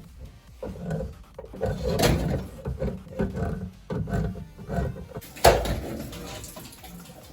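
Hand saw rasping through drywall in quick, uneven strokes, with a sharp knock about five and a half seconds in.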